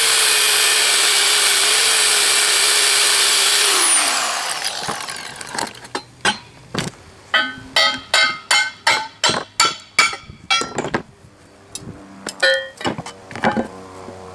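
DeWalt angle grinder grinding off the welds that hold a plate to a cast steel shear frame. It runs steadily, then winds down about four seconds in. A string of sharp, ringing metal strikes follows, about two or three a second, as the plate is worked loose.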